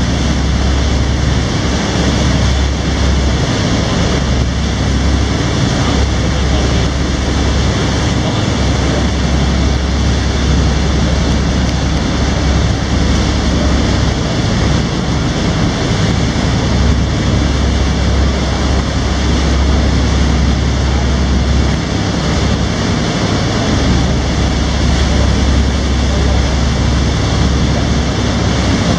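Passenger boat's engine running steadily at cruising speed, a constant low hum under the rush of water from the wake and wind.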